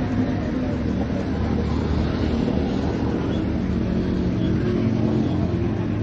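A steady low rumble of running machinery with a faint hum.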